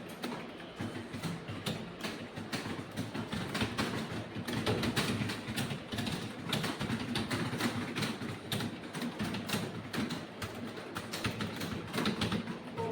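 Rapid typing on a computer keyboard: a dense, irregular stream of key clicks.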